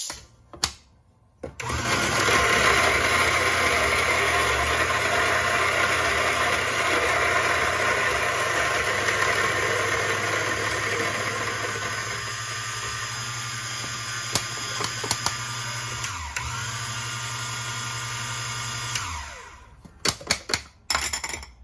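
Electric burr coffee grinder grinding a 15 g dose of beans: the motor starts about a second and a half in, runs loudest at first and gets lighter as the beans run through, then switches off and winds down with a falling pitch. A few clicks and knocks follow near the end.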